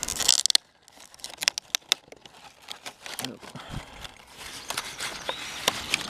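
Clear plastic blister packaging being torn open and crinkled by hand: a loud rip in the first half-second, then scattered crinkles and sharp clicks of stiff plastic being pulled apart.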